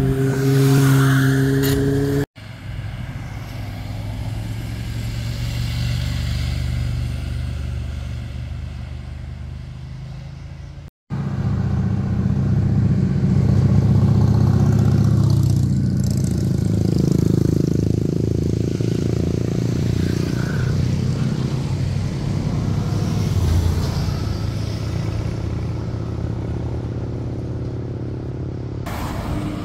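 Motorcycle engines passing through a hairpin bend one after another, the engine note rising and falling as each rider slows for the corner and accelerates out. The sound breaks off sharply twice, about two and eleven seconds in, where one clip gives way to the next; from the second break a cruiser motorcycle's low, steady engine note is the loudest sound for most of the rest.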